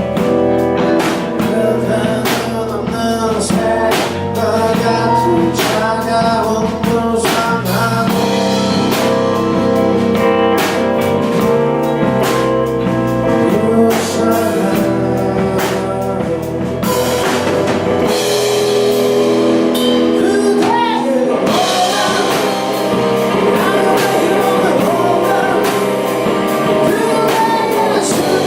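A rock band playing live, with electric guitars, bass, drum kit and a singing voice.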